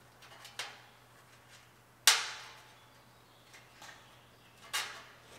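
Parking-sensor bezels being popped out of a pickup's front bumper: a few sharp snaps, the loudest about two seconds in and another near the end, with lighter ticks between.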